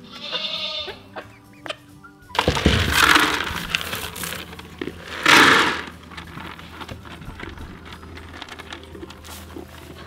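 A goat bleats twice: a long call about two and a half seconds in, then a shorter, louder one about five seconds in. A brief higher animal call comes at the start, and soft background music runs underneath.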